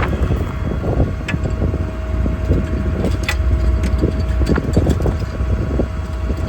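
Ram 5500 service truck's 6.7 Cummins diesel running, driving the hydraulics for the truck-mounted crane: a steady low rumble with a faint steady whine over it, and a couple of sharp clicks.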